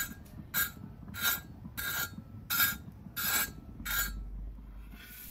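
A metal blade rasping across the butter-toasted tops of Hawaiian sweet dinner rolls: seven crunchy scrapes, evenly about two-thirds of a second apart, the sound of the rolls' crispy crust.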